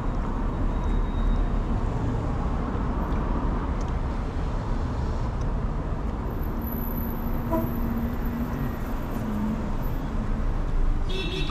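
Street traffic: a steady low rumble of passing cars, with one steadier engine hum for a few seconds past the middle.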